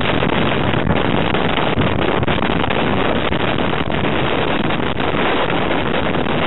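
Loud, steady wind noise: strong wind buffeting the microphone.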